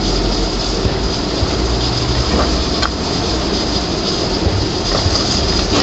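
Steady roar of a gas burner under an aluminium karahi of simmering chicken curry, with a few light clinks of the steel ladle against the pan as it is stirred.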